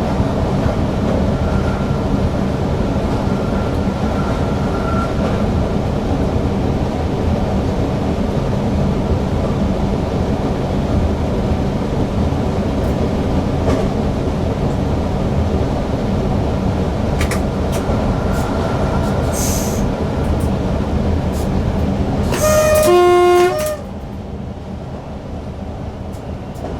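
Newag Impuls EN63 electric multiple unit running along the line, heard from the driver's cab as a steady rumble with humming electric tones. Near the end a loud tone sounds for about a second, stepping down in pitch, and after it the running noise drops.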